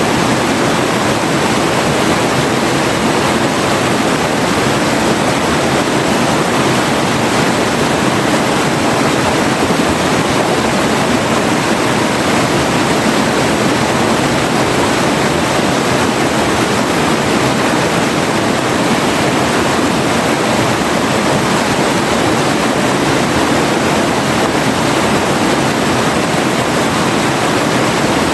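River water flowing, a steady unbroken rush.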